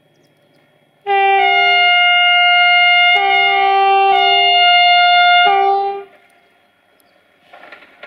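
Train's multi-tone air horn sounding one long signal of about five seconds. Its chord steps back and forth between two pitches several times before it cuts off sharply.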